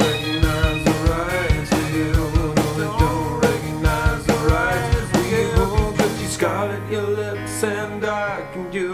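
Rock song: a male voice singing over a steady drum-kit beat and a low bass line.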